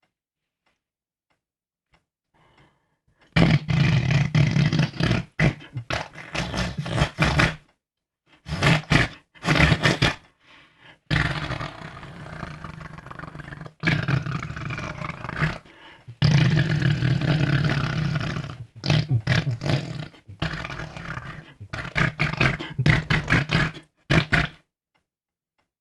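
A person making imitation fart noises: loud, buzzy blasts that start about three seconds in, some short and choppy and some drawn out for a few seconds, with brief gaps between them.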